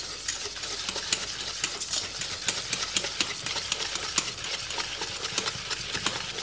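Wire whisk beating egg yolks and icing sugar in a stainless steel bowl, the wires scraping and clicking rapidly against the metal without a break.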